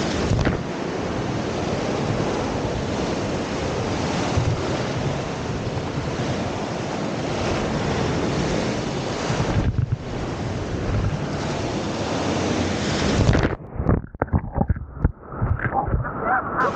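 Whitewater rapids rushing past the bow of a raft, with wind buffeting the microphone. About thirteen and a half seconds in, a wave breaks over the bow and the sound suddenly turns muffled and choppy, sloshing splashes as the bow-mounted camera goes under the water.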